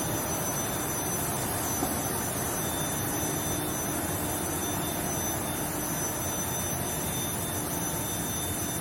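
Steady machinery din of a steel hot rolling line with an induction heating furnace, an even noise with a constant high-pitched whine running through it.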